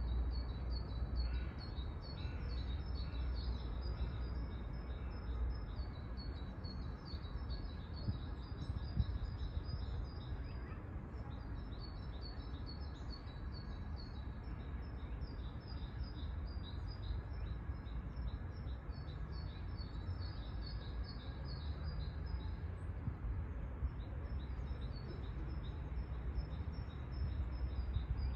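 Small songbirds chirping in a dense, high chorus of short repeated notes that never lets up, over a low steady rumble.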